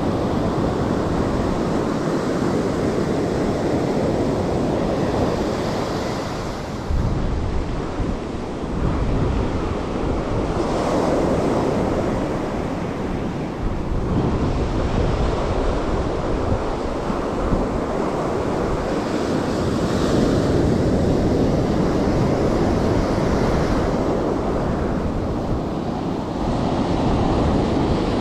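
Surf breaking and washing up a sandy beach, swelling and ebbing every few seconds, with wind buffeting the microphone.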